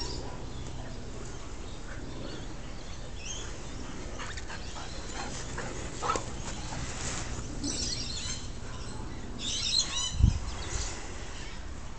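Sounds of a husky and a husky x red cattle dog cross playing on grass, with birds chirping faintly in the background. A brief thump about ten seconds in is the loudest sound.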